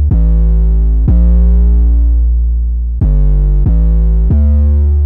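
Intro music: sustained synthesizer chords over a deep bass, with a new chord struck about every second.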